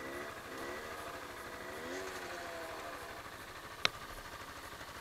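Vehicle engine running, its pitch rising and falling several times as the throttle varies, then holding steadier, with a sharp click about four seconds in.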